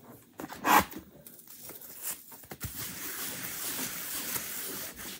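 A wet wipe scrubbing over a Chalk Couture silk-screen transfer to clear dried chalk paste off it: a steady scratchy rubbing from about three seconds in. Under a second in there is a short, louder knock or rustle.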